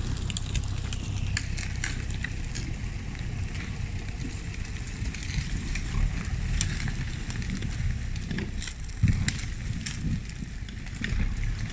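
Footsteps crunching through dry branches and logging slash, with twigs snapping at irregular intervals over a steady low rumble.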